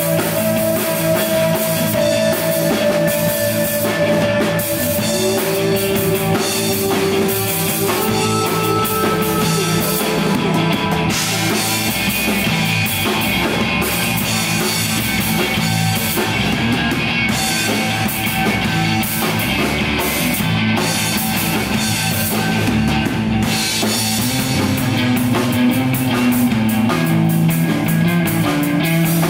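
Live rock band playing loud: electric bass, electric guitar and drum kit, with steady drumming under long held guitar notes.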